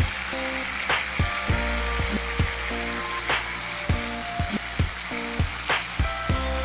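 Chicken drumsticks sizzling in soy-sauce adobo sauce in a nonstick skillet as the sauce cooks down and thickens, with a wooden spatula stirring them. Sharp clicks come about twice a second.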